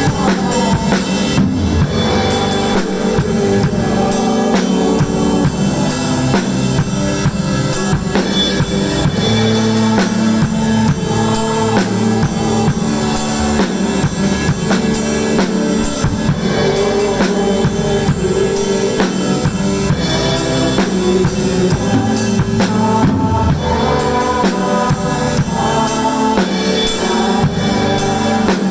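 Drum kit played along to a contemporary worship-song backing track: a steady beat of bass drum, snare and cymbals over the full band and sustained chords.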